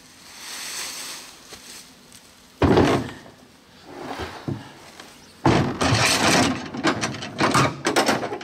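A deer carcass is dragged over dry leaves with a rustle, then heaved into the cargo bed of a John Deere Gator utility vehicle with one loud thump about two and a half seconds in. Irregular thuds and knocks follow from about halfway through as the carcass is shifted in the bed.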